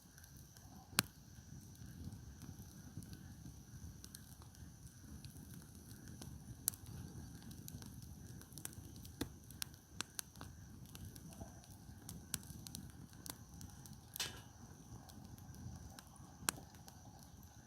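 Wood campfire burning, with sharp crackles and pops at irregular intervals over a low steady rumble.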